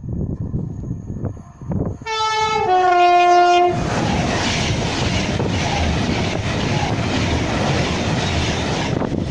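A train horn sounds two notes, a higher note then a lower one, for about a second and a half. A train then runs through at speed, with a loud rush and rail clatter for about five seconds that drops away near the end.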